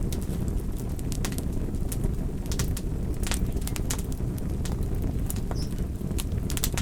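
Wood fire crackling, with sharp snaps and pops coming irregularly several times a second over a steady low rumble of burning and wind.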